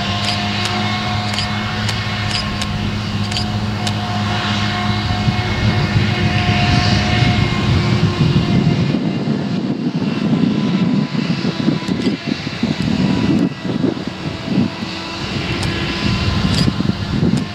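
Claas Jaguar 970 forage harvester working under load chopping rye, its engine drone mixed with the John Deere tractor running alongside with the trailer. A steady droning hum that grows rougher and louder about halfway through as the machines come closer.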